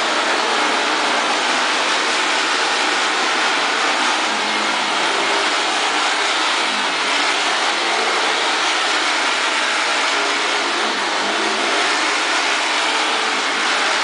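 Upright vacuum cleaner running steadily as it is pushed back and forth over a rug.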